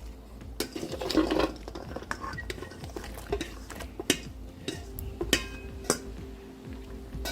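Kitchen clatter at a pot: scattered knocks and clinks of a utensil against metal, with two sharper ringing clinks about five to six seconds in.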